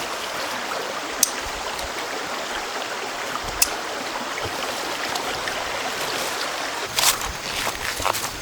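A river flowing steadily, with two short sharp clicks in the first half. Near the end come a few knocks and rustles.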